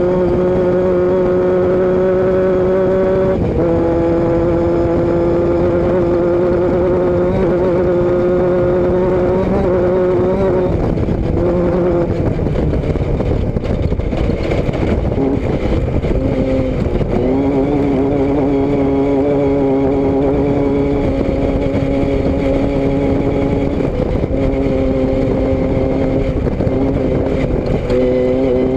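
A motor vehicle's engine running steadily under way, its pitch dropping in steps a few times, with a steady rushing noise underneath.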